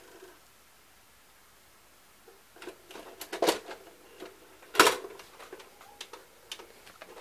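Sharp mechanical clicks and clunks from a VCR's tape mechanism and front-panel buttons, starting after about two seconds of near silence, with two louder clacks in the middle.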